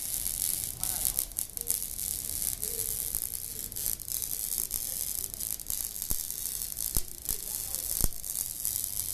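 Electric arc welding: a steady crackling hiss, with a few sharper pops in the last few seconds.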